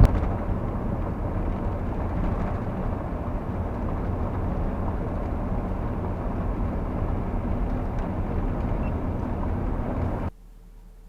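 Steady vehicle running noise, engine and road noise, which cuts off abruptly near the end, leaving a faint steady hum.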